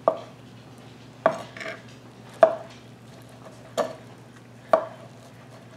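Kitchen knife knocking down onto a plastic cutting board five times, about a second apart, as it cuts through tender slow-cooked chicken breasts that are falling apart.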